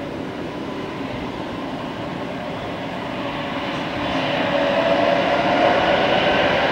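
Jet airliner engines: a steady rushing noise with a whining tone that grows louder about four seconds in.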